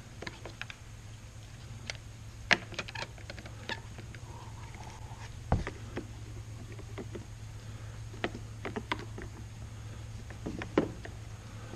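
Scattered small clicks and knocks of a coil spring and hinge pin being worked by hand into a Husqvarna zero-turn mower's discharge chute, with one heavier knock about halfway through, over a steady low hum.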